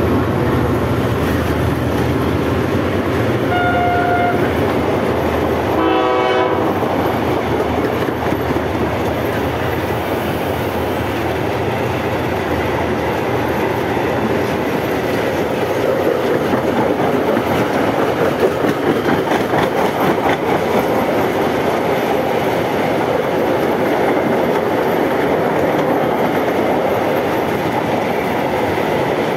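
A diesel freight train passing close by: the locomotive's engine rumbles past and its horn sounds briefly about four seconds in and again about six seconds in. Then a long train of covered freight wagons rolls by, its wheels clattering steadily over the rail joints.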